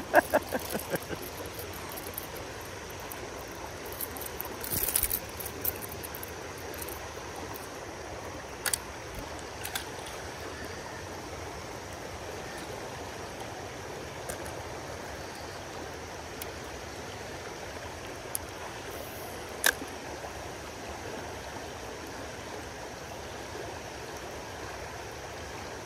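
Shallow creek riffle running over rocks: a steady rush of water. A few short, sharp clicks are scattered through it.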